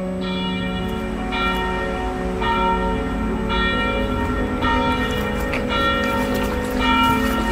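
Church bell tolling: seven strokes about a second apart, each one ringing on into the next.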